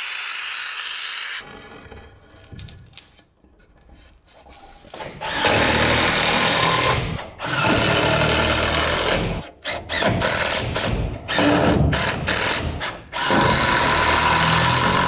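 Power drill driving screws in about five bursts of one to two seconds each, with short pauses between, after a few seconds of scattered clicks and knocks.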